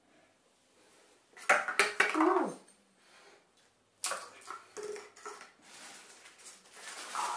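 Small white disposable cups clattering lightly as they are picked up from a stack and set onto a cup pyramid. There is a cluster of clicks about one and a half seconds in, then scattered light taps and rattles from about four seconds in.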